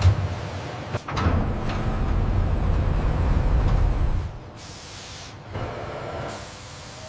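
Heavy machinery rumbling, with a sharp click about a second in; the rumble stops about four seconds in, followed by short bursts of hissing air.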